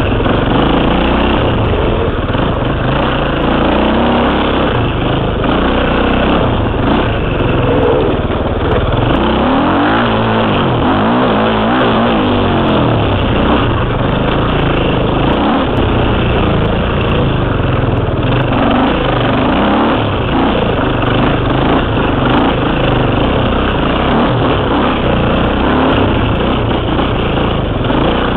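KTM 300 two-stroke dirt bike engine running hard, heard close from a helmet camera, its pitch rising and falling as the throttle opens and closes.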